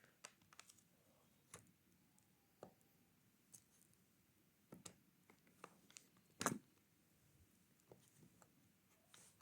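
Faint, scattered clicks and taps of a cardboard box being handled and cut open, the loudest about six and a half seconds in.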